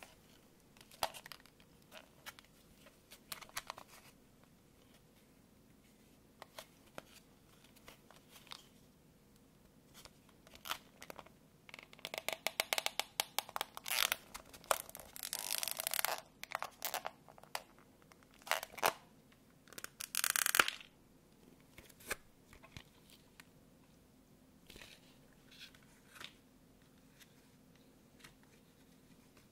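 Clear plastic clamshell pack being handled and prised open by hand: scattered clicks and taps of stiff plastic, a dense run of rapid crackling clicks in the middle, and a loud short crackling rasp about twenty seconds in.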